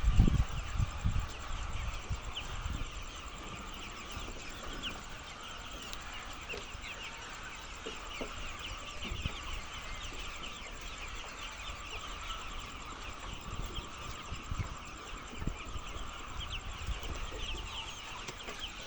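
A large flock of laying hens clucking and chattering, a dense unbroken mass of many overlapping short calls. A low rumble sounds in the first second or so.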